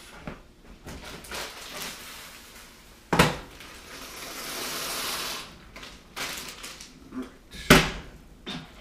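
Kitchen clatter: two sharp knocks, about three seconds and eight seconds in, of things being knocked or set down, with a hiss for a second or so between them.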